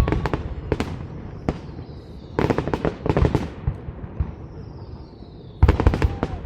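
Aerial fireworks shells bursting in rapid clusters of bangs and crackles, with a lull in the middle. A faint falling whistle runs through the lull before the last cluster breaks.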